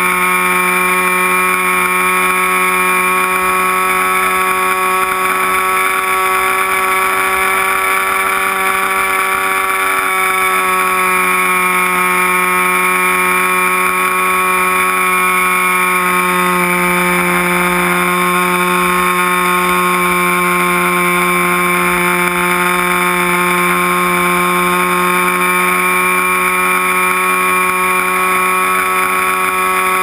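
Remote-control float plane's motor and propeller running in flight, picked up by a camera on the plane: a loud, steady whine of several tones whose pitch dips slightly now and then as the throttle eases and returns.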